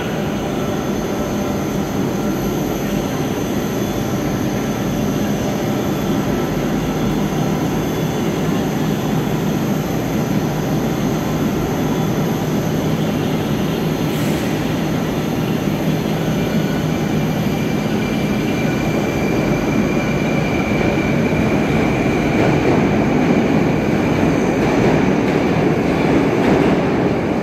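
Moscow metro train standing at the platform with a steady hum, then pulling out: the traction motors' whine rises in pitch from about two-thirds of the way through, and the running noise grows louder as the cars accelerate past.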